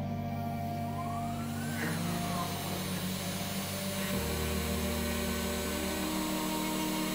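A WorkBee-type CNC router's stepper motors whine as the gantry makes a rapid move, the pitch rising and then falling as it speeds up and slows, over steady background music. A steady motor hiss builds as the spindle runs up for a roughing pass.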